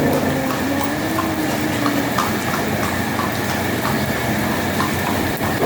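Steady rushing sound like liquid running or being poured, with a faint steady whine and light regular ticking.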